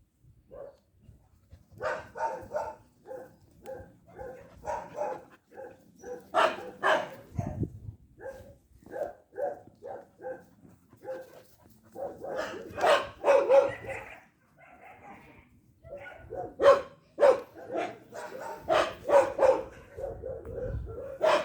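Dog barking over and over in bouts of short barks, with a short pause about two-thirds of the way through.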